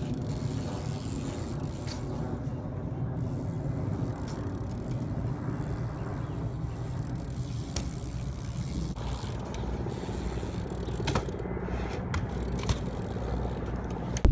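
BMX bike riding in a concrete bowl: a steady low rumble of the tyres rolling on concrete, with a couple of sharp clicks about three-quarters of the way through.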